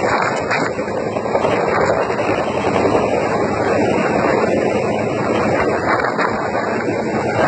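Helicopter hovering overhead, a loud steady rotor and engine noise mixed with wind on the microphone.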